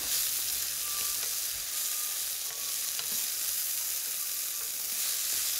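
Flour-coated chicken pieces sizzling steadily as they sauté in hot olive oil in a nonstick skillet.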